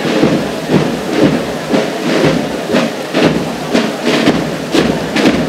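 Military marching cadence: evenly spaced thuds about twice a second, at march tempo.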